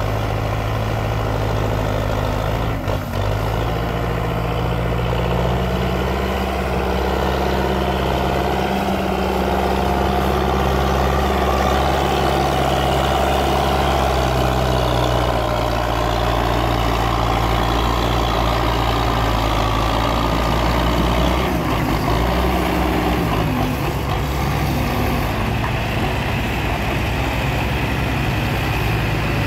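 Belarus MTZ-50 tractor's four-cylinder diesel engine running steadily under load while hauling a heavily loaded sugarcane trolley, its note dipping briefly a couple of times.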